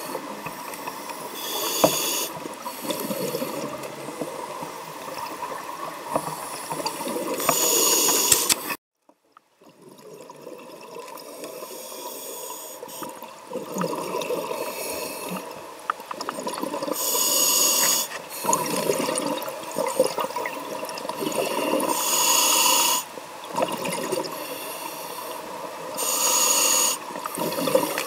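Scuba diver breathing through a regulator, heard from inside an underwater camera housing: a bubbling rush of exhaled air every few seconds over a steady muffled underwater hiss. The sound cuts out briefly about nine seconds in.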